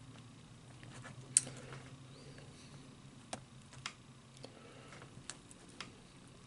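Quiet eating sounds: scattered small clicks and ticks, the loudest about a second and a half in, over a faint low steady hum.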